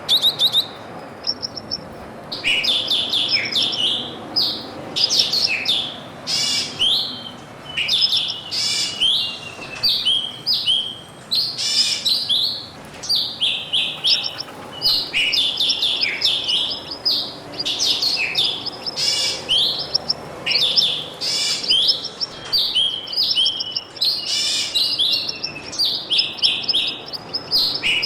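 Small birds chirping and twittering, many short high chirps following one another almost without pause after a brief lull near the start.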